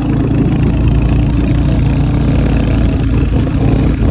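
Motorcycle engine running steadily with a low drone, heard while riding.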